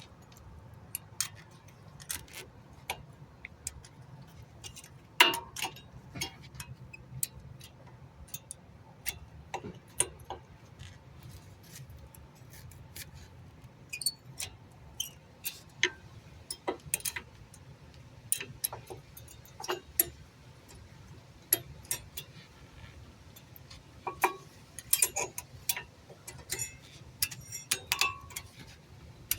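Irregular metal clicks and taps as brake pads are handled and slotted into the caliper bracket hardware, the loudest about five seconds in and a quick cluster near the end.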